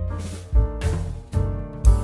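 Instrumental background music with sustained pitched notes over a deep bass line.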